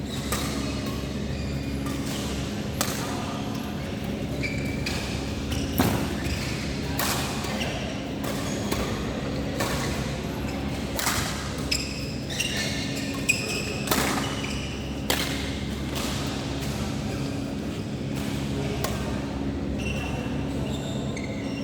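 Badminton being played in a large hall: sharp racket hits on the shuttlecock at irregular intervals and short, high shoe squeaks on the court floor, over a steady low hum.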